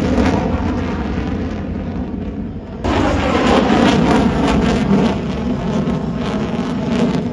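Fighter jet's engines passing overhead as a loud, steady low rumble, which jumps abruptly louder about three seconds in.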